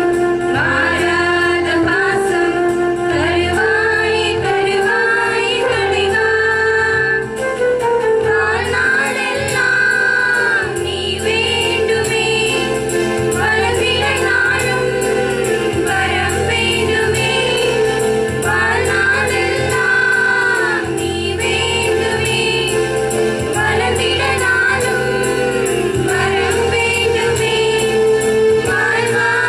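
A group of women singing a song together into a microphone, backed by an electronic keyboard with a steady bass line and beat.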